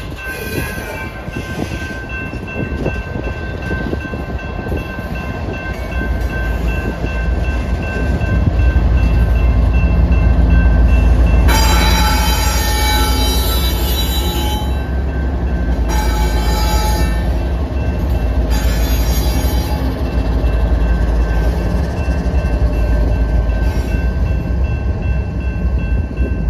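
BNSF freight train's loaded rock hopper cars rolling through a grade crossing, then a rear-end diesel locomotive passing, its deep engine rumble building to the loudest part near the middle. Three stretches of high-pitched sound come while the locomotive passes. A crossing bell rings steadily throughout.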